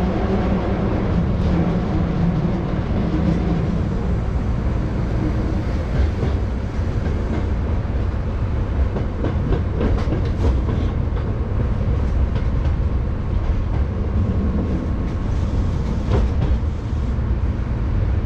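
Hankyu 7000 series electric train running, heard from inside the lead car: a steady rumble of wheels on rail with occasional clicks as the wheels pass over rail joints.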